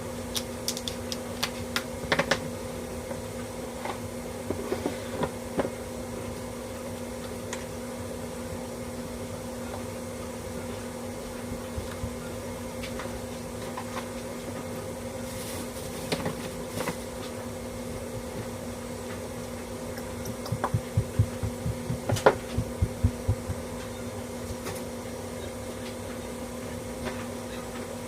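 A steady low hum with scattered sharp clicks and taps, and a quick run of them about twenty seconds in.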